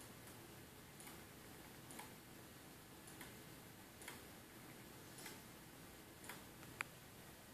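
Near-silent room with faint, regular ticking about once a second, and one slightly sharper click near the end.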